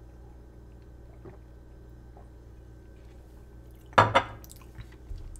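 Faint sipping from a glass mason jar. About four seconds in, the jar is set down on a stone countertop with a sharp glassy clunk and a second small knock.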